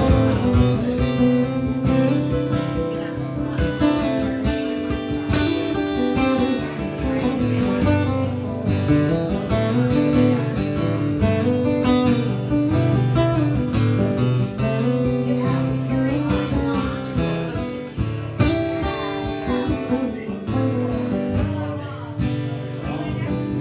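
Acoustic guitar instrumental break in a country-folk song: steady strummed chords with a melody line played over them, and no singing.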